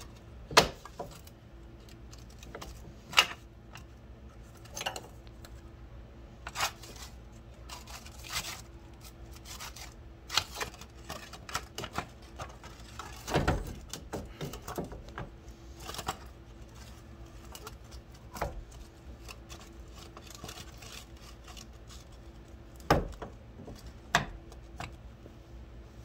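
Metal tools and hub parts clinking and knocking as the rear wheel hub and brake dust shield are fitted back on: scattered sharp clinks every second or two, a few louder knocks, over a faint steady hum.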